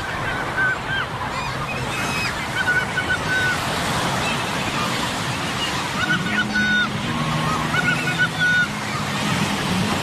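Beach ambience: steady surf and crowd noise, with short high-pitched calls repeated every second or so.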